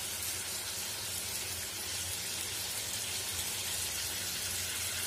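Chicken pieces and fried onions sizzling steadily in oil in a pan, a soft even hiss with a low steady hum underneath.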